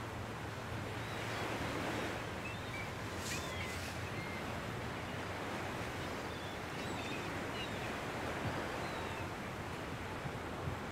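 Steady sea wash of waves against a seawall, with wind. A few faint, short bird chirps come through from about two seconds in.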